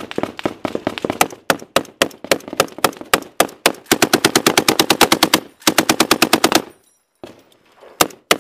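Belt-fed machine gun fire close by, loud: irregular shots and short bursts, then two long rapid bursts past the middle, a short lull and a few single shots near the end.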